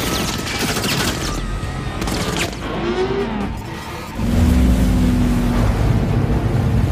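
Action-film soundtrack: a dramatic score mixed with effects, with a burst of rapid machine-gun fire and whooshing sweeps in the first seconds. About four seconds in the music swells into louder, sustained low notes.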